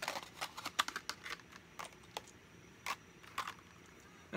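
Clear plastic clamshell packaging crackling and clicking as it is pried open by hand and a fidget spinner is taken out: a quick flurry of sharp crackles at first, then a few scattered clicks.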